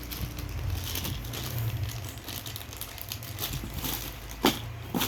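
Handling of parts and packaging: faint rustling and small rattles, with a sharp knock about four and a half seconds in and a lighter one near the end, over a steady low hum.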